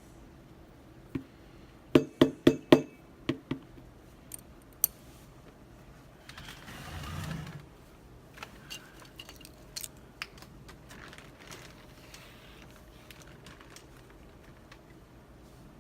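Small metal lock parts and tools handled on a hard work surface. A quick run of sharp clicks and clinks comes about two seconds in, then a short rustle around seven seconds, then scattered lighter clicks.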